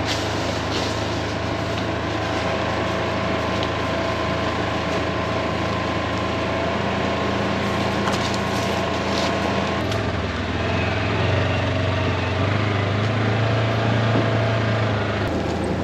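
Off-road vehicle engine running steadily while driving along a trail. The engine note changes about ten seconds in.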